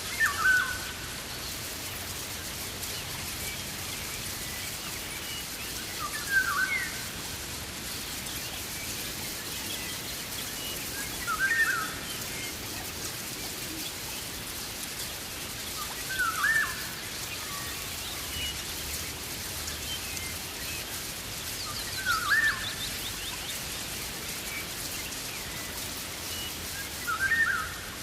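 Rainforest ambience: a bird gives the same short call six times, about once every five seconds, over a steady background hiss.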